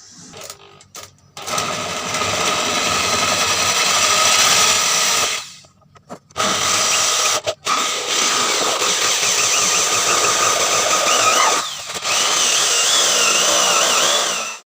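Handheld power tool running in several stretches, broken by short stops.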